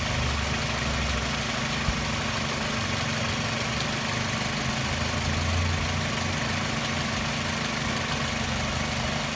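2004 Toyota RAV4 engine idling steadily with the air conditioning running, with a small click about two seconds in.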